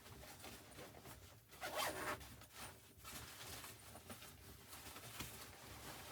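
Short rasping, rustling strokes of clothing or gear being handled, the loudest about two seconds in.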